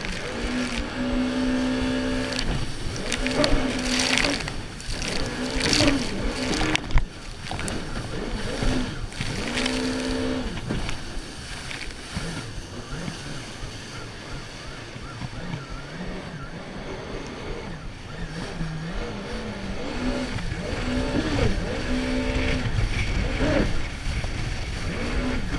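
Jet ski running at speed across choppy sea: the engine's steady note over the rush of the water jet and wake, with several loud bursts of spray and slapping water against the hull.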